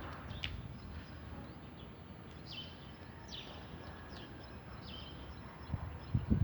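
Birds chirping, with short, high, falling chirps every second or so over faint outdoor background noise. A few low thumps come near the end.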